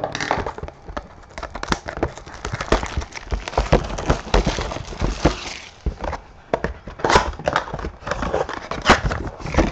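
Clear plastic shrink wrap crinkling and crackling as it is torn off a cardboard trading-card box, in a dense run of sharp crackles and scratches with taps from the box being handled.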